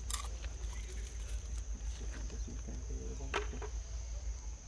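Steady high-pitched insect drone with a low rumble beneath it, a few small clicks, and a brief soft call about three seconds in.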